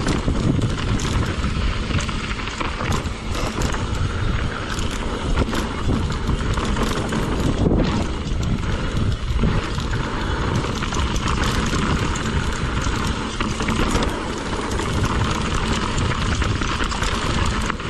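Mountain bike riding down a dirt trail: tyres running over dirt and rocks and the bike rattling with many small knocks over the bumps, under steady wind noise on the camera microphone.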